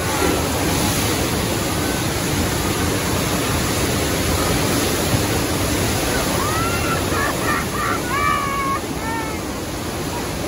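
Rushing floodwater of a theme-park earthquake set: a torrent of water pouring through the set with a steady, loud rush. Several short, high-pitched wails rise and fall about two-thirds of the way through.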